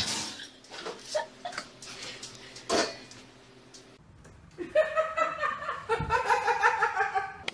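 High-pitched laughter in quick pulses fills the last three seconds. Before it come a few short knocks and rustles.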